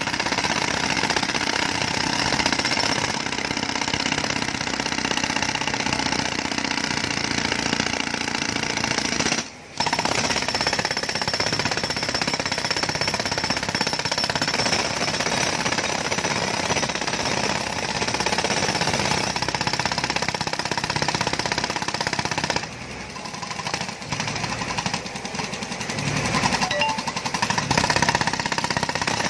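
Jackhammer breaking up a road surface, hammering continuously. It stops for a moment about a third of the way in, runs quieter for a few seconds near the end, then picks up again.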